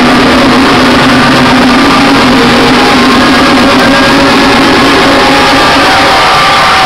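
Loud dance music through a club sound system, continuous, with held tones and one sound sliding down in pitch near the end.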